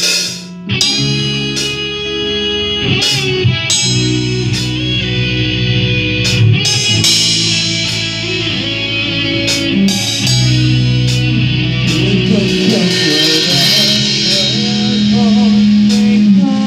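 Music: a band playing a song's instrumental passage led by guitar, over held bass notes and regular drum hits, with no singing.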